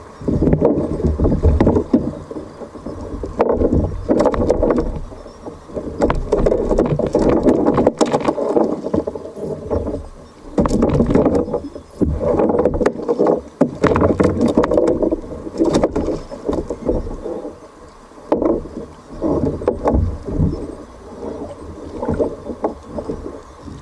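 Water sloshing and splashing around a kayak at sea, swelling and fading every second or two, with scattered knocks and clicks.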